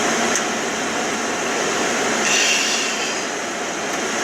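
A steady, loud rushing noise that builds up just before and then holds level, with a faint high tone briefly a little past two seconds in.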